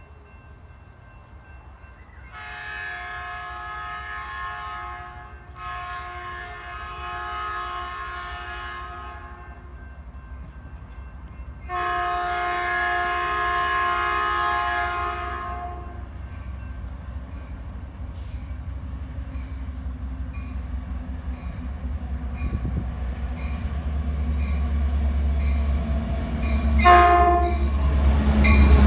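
Horn of an approaching Metrolink EMD F59PHI diesel locomotive sounding three long blasts, the third the loudest. Then the locomotive's diesel engine rumble grows louder as the train pulls in, with a brief horn toot near the end.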